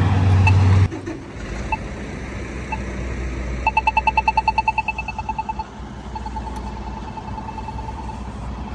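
Polara iNS2 accessible pedestrian signal push button ticking its slow locator tone about once a second, then switching to a rapid ticking, about ten ticks a second, that marks the walk phase, loud for about two seconds and then fainter. A vehicle passes at the start, its engine noise cutting off about a second in.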